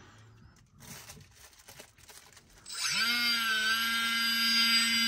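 Homemade mini drill's brushless DC motor starting about two and a half seconds in, rising in pitch as it spins up, then running free at a steady high whine with several tones. Before that, only faint small handling noises.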